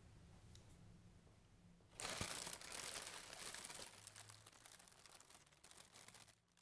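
Tissue paper crinkling and rustling as it is handled. It starts suddenly about two seconds in and dies away over the next few seconds, after faint room tone.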